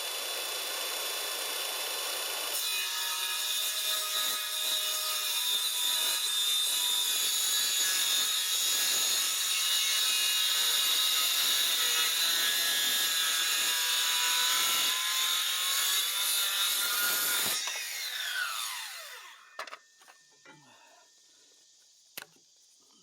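Electric power saw cutting through wood, running steadily, then the blade spinning down with a falling whine after about seventeen seconds. A few light knocks follow near the end.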